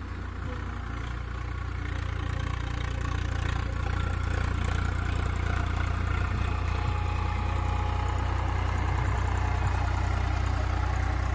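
Diesel tractor engine running steadily with a deep hum, heard from on board the tractor; it grows louder over the first few seconds, then holds steady.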